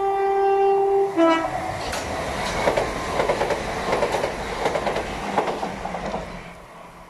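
Class 387 electric multiple unit sounding its two-tone horn, a long higher note then a short lower one. It then passes at speed, wheels clattering over the rail joints, and the noise fades away near the end.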